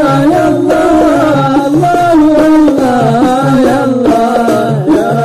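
Gambus-style Arabic devotional music: a wavering, ornamented melody over a steady pulse of low hand drums.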